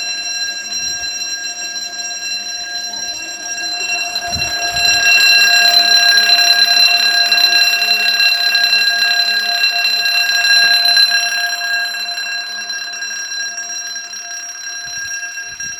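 Railway level crossing warning alarm sounding continuously as a steady, high-pitched electronic tone. It grows louder about four seconds in and eases again after about eleven seconds.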